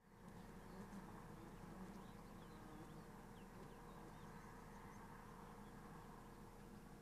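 Faint outdoor ambience with distant birds chirping now and then as small, short calls.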